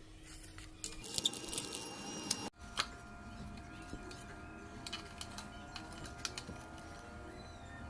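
Faint scattered clicks and rustles of hands working with small tools and materials, breaking off briefly about two and a half seconds in.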